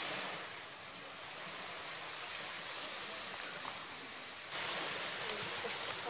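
Steady hiss of small sea waves washing onto a sandy beach, getting a little louder about four and a half seconds in.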